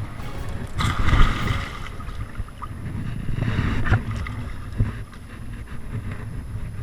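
Wind buffeting the microphone with a fluctuating low rumble and water noise on an open boat, with a louder rushing burst about a second in.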